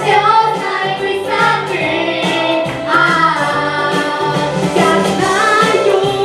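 A song: a single voice singing a melody over instrumental backing.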